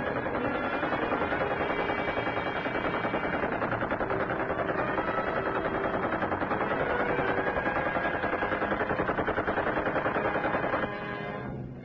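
Machine gun firing one long continuous burst in a fast, even rhythm, stopping near the end.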